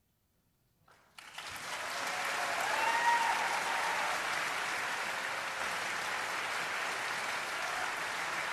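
Concert audience breaking into applause about a second in, right after a brief silence at the end of the final piece, then clapping steadily.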